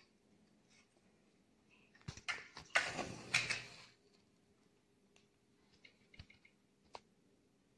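A wooden match struck on a matchbox: a couple of sharp scrapes, then a loud rasping flare as it catches, about two to four seconds in. A few faint ticks follow.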